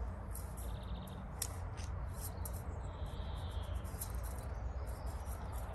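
Quiet outdoor background with a steady low rumble, scattered light clicks, and two short high chirps, one about half a second in and one around three seconds in.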